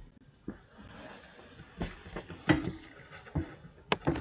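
A few scattered clicks and soft knocks, about five in all, over a faint background hiss.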